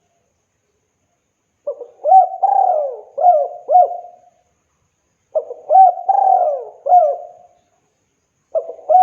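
Spotted dove (tekukur) cooing. After a second and a half of silence come two phrases of several coos each, and a third phrase begins near the end.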